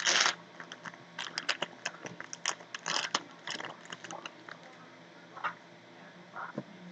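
Trading cards being handled and flipped through: a short rustling swish at the start, then a run of light clicks and rustles of card on card that thins out to a few scattered ticks.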